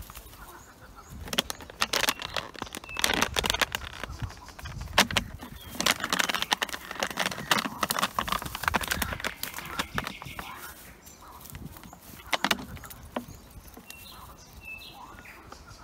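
Dog biting and pawing an empty plastic water bottle: the plastic crackles and crunches in dense clicking runs through most of the first ten seconds, with another short bout a little later, along with rustling of dry grass.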